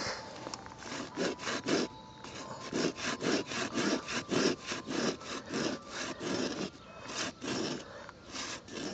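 Fine-toothed pruning saw cutting through an old grapevine trunk in quick back-and-forth rasping strokes, about four a second, with a short pause about two seconds in.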